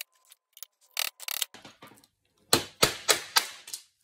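Hammer driving a drywall screw, used as a punch, against the drilled-out rivets of a car door window regulator to knock them out: a few light metallic clicks, then five quick, sharp strikes in about a second.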